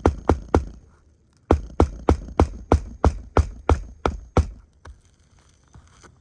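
Hammer blows, about three a second, in two runs with a pause of about a second between them; the blows stop about four and a half seconds in, leaving a couple of faint knocks.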